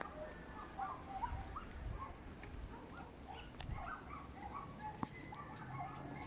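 A group of birds calling: many short, overlapping calls, with a few sharp clicks among them.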